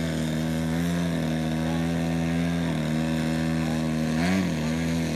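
Large 3D aerobatic RC airplane's engine and propeller in a nose-up hover (prop hang): a steady pitch held with small throttle corrections, dipping and then swinging up briefly about four seconds in.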